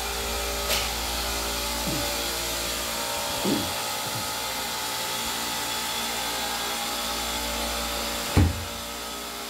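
Refrigeration rack compressors running together after start-up, a steady mechanical hum with a hiss over it. A few short knocks, the loudest about eight seconds in.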